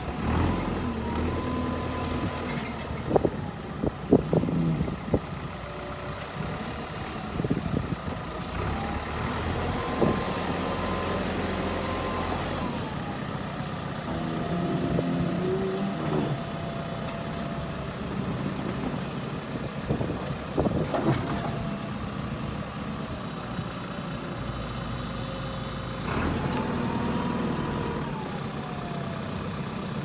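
JCB 3DX backhoe loader's diesel engine running while its loader and backhoe hydraulics are worked, with several sharp clunks along the way and a tone that rises and falls near the end.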